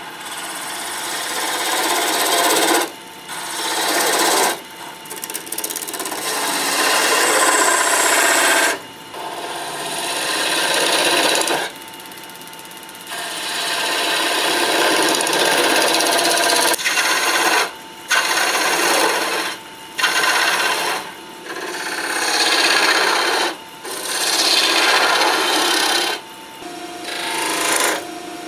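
A turning tool cutting a spinning cherry wood blank on a Delta wood lathe: a loud, rough scraping noise in repeated passes of a few seconds each. The passes are broken by about nine short gaps where the tool lifts off and only the lathe's quieter running is heard.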